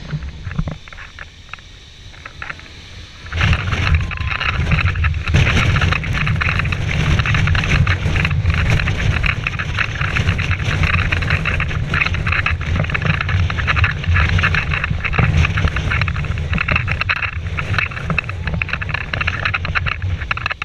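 Jet airliner engines at takeoff power, a loud steady noise that starts suddenly about three seconds in, with the jet blast buffeting the microphone.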